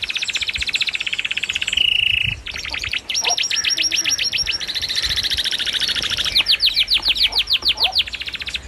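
A bird singing in long, fast trills of high chirping notes, breaking off briefly about two and a half seconds in; near the end the notes slow into louder, separate downward sweeps.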